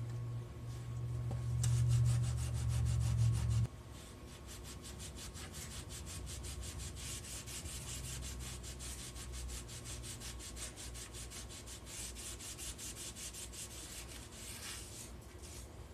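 Scrubbing pad rubbing rust off a steel machete blade in quick, rhythmic back-and-forth strokes, the rust loosened by a vinegar soak. A low hum under the first few seconds cuts off suddenly about three and a half seconds in.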